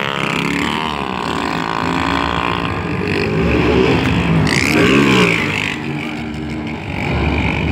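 Motorcycle engines revving as riders pull wheelies, their pitch rising and falling; about five seconds in one engine's pitch dips sharply and climbs again.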